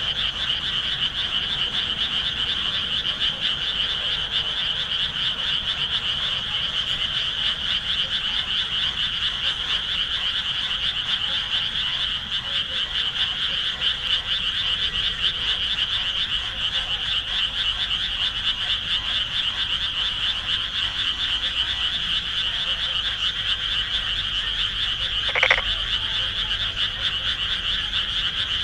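A dense, steady chorus of many frogs calling together from the rice paddies. A single short, louder sound stands out near the end.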